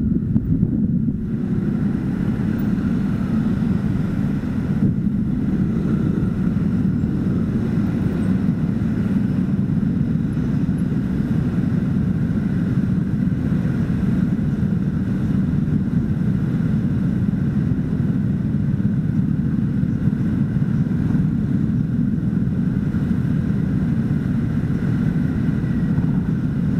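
Motor scooter engines idling in stopped traffic: a steady low hum. Wind noise on the microphone drops away about a second in as the ride slows to a stop.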